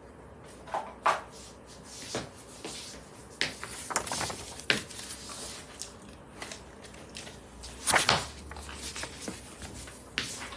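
Scattered knocks, clicks and rustles of someone rummaging through things while searching for a pen, with the loudest cluster of knocks about eight seconds in.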